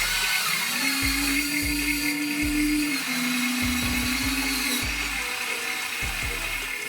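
Small electric motors of a Huina 1593 1/14-scale RC excavator whining as it moves. The steady whine steps down in pitch about three seconds in and stops about five seconds in.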